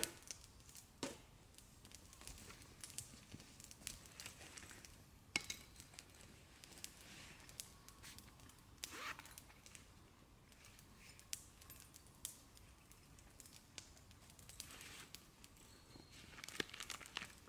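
Faint handling noises: irregular small clicks and crinkling rustles.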